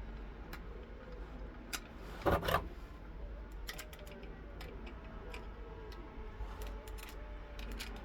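Scattered light clicks from handling a plastic toy cap gun, with one brief, louder noise a little over two seconds in.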